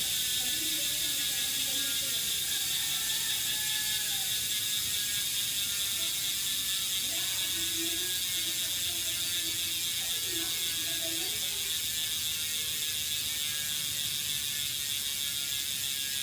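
Hope Pro 4 rear hub freewheeling, its four-pawl freehub ratchet giving a loud, continuous rapid-fire buzz of clicks as the wheel coasts. The buzz eases slightly toward the end.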